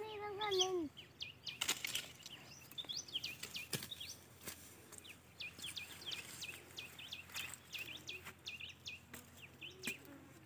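Small birds chirping over and over in short, high notes, with a young child's high-pitched voice in the first second and a few sharp knocks along the way.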